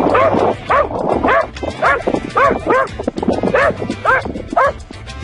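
A dog barking in a rapid series, about two sharp barks a second.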